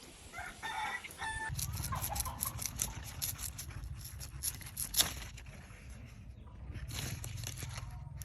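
A chicken calls briefly, a pitched call lasting about a second, followed by a run of sharp clicks and crackles over a low rumble, with one loud click near the middle.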